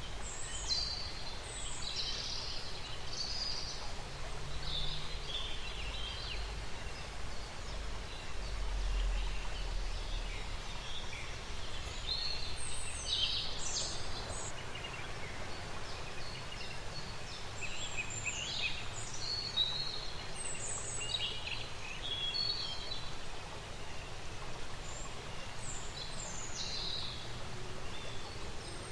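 Nature ambience of many small birds chirping and calling in short, overlapping phrases over a steady background hiss, with a low rumble in the first ten seconds or so.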